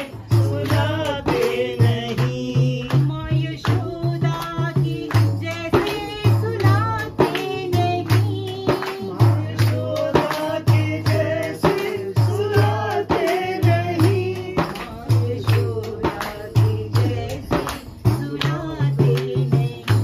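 People singing together to a frame drum beaten in a steady rhythm, with hand claps.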